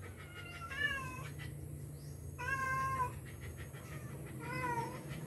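Kitten mewing three times, high and thin. The middle mew is the longest, and the last one dips in pitch.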